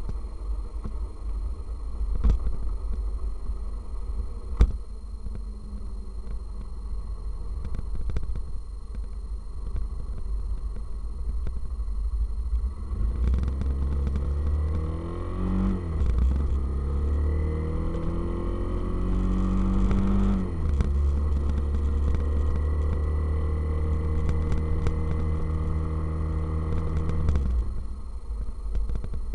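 Motorcycle engine and wind buffeting the microphone while riding. Heavy low rumble with a couple of knocks early on. About halfway through, the engine pitch climbs twice as the bike accelerates through the gears, then holds steady and eases off near the end.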